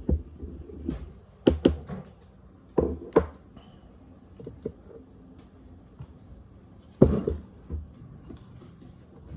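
A pestle knocking and tapping in a mortar while dried sneezeweed is ground to powder: about half a dozen irregular sharp knocks, the loudest about seven seconds in.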